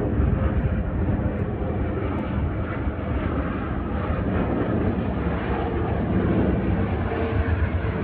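Jet engines of a small rear-engined twin-jet on final approach for landing: a steady rumble with a faint whine, heavy and uneven at the bottom.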